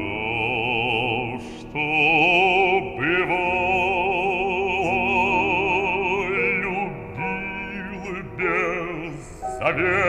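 Operatic bass voice singing a slow Russian romance in long held notes with wide vibrato, with brief breaths between phrases.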